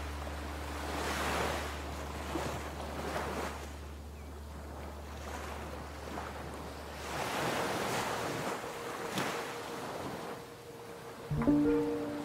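Ocean surf: waves breaking and washing in, the rush rising and falling in long swells, over a steady low hum that stops about seven seconds in. A few notes of music come in near the end.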